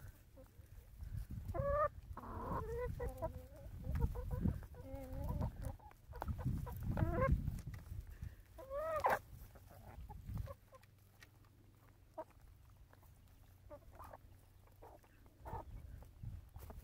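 Several hens clucking, with a few short rising and falling calls in the first half, as they peck at a bowl of frozen-solid vegetables. Short taps are scattered through, and a low rumble drops away about ten seconds in.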